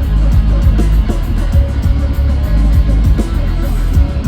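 Live nu-metal band playing loud, guitar riffing over heavy bass and a steady drum beat, recorded from the concert crowd.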